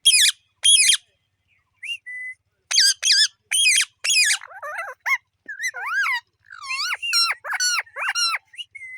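Parrot giving a rapid string of short, shrill calls and chatter, many of them sweeping down in pitch, with a brief pause early on before a faster run of calls.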